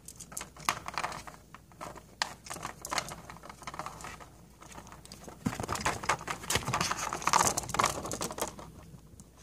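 A kitten playing and scrabbling with a string toy on carpet: irregular scratching, rustling and light clicks, growing busier about halfway through.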